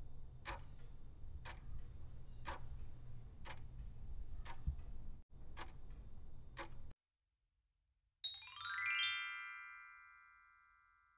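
Countdown-timer sound effect ticking about once a second over a low hum, stopping about 7 s in. After a short silence, a bright rising chime rings out and slowly fades: the answer-reveal sound.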